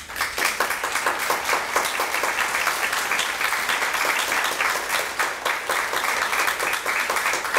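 Audience applauding: many hands clapping together, breaking out suddenly and going on at an even level.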